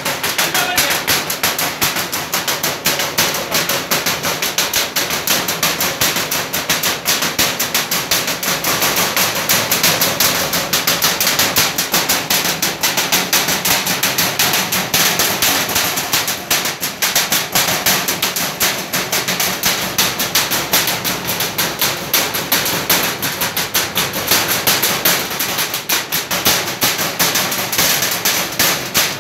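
A fast, unbroken run of sharp cracks or knocks, many a second.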